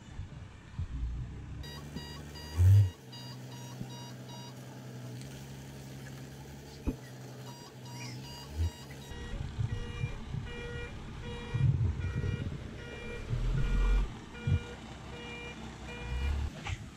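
Toyota Coaster microbus's back-up alarm beeping in a fast, even series, sped up to double speed, over the low running of its engine. Near the start there is a loud low thump, and about halfway through the beeps change to a different pitch.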